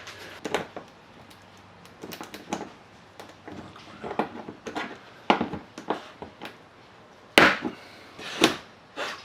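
Flathead screwdriver prying at a plastic push-type retaining clip in a car's front bumper: scattered small scrapes and clicks, then a loud sharp snap about seven seconds in and another about a second later.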